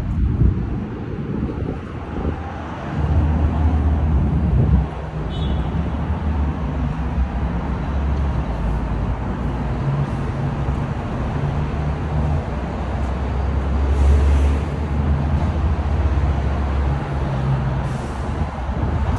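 Road traffic on a busy city street: engines running and vehicles passing, under a heavy, shifting low rumble.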